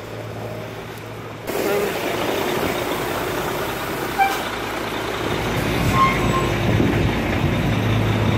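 Busy street traffic, a bus's engine running close by. The noise rises suddenly about one and a half seconds in and builds into a low rumble in the second half, with a couple of short squeaks around the middle.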